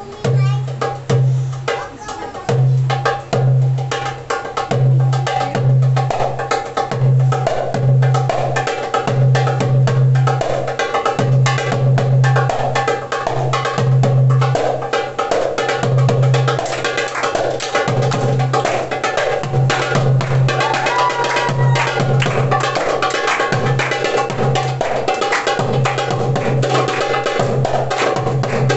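Darbuka (derbak) solo: deep booming doum strokes mixed with rapid, sharp tek strokes in a driving rhythm, over a sustained melodic backing.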